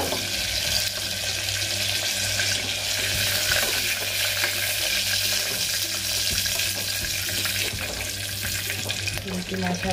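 Keema koftas frying in hot oil in an aluminium pressure cooker, a steady sizzle, with a metal spoon scraping and clinking against the pot as the koftas are lifted out.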